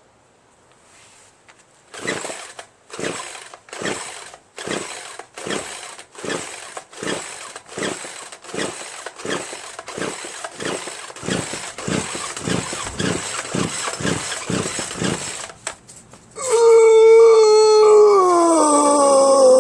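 Poulan Pro PR4218 two-stroke chainsaw pull-started over and over, about twenty quick pulls of the recoil starter whirring the engine without it ever firing: a saw with no compression from a scored piston and cylinder. Near the end comes a loud, long howl that slides down in pitch.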